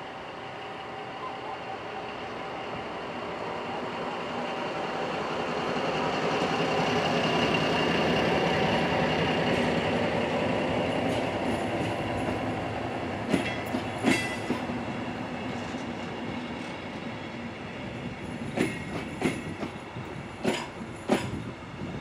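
Diesel-hydraulic class 112 locomotive and its coaches passing by: the engine swells to a peak about eight seconds in, then fades. As the coaches roll past, the wheels give pairs of sharp clicks over the rail joints.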